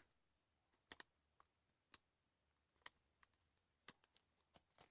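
Near silence broken by a few faint, sharp clicks and taps, roughly one a second, like small objects being handled.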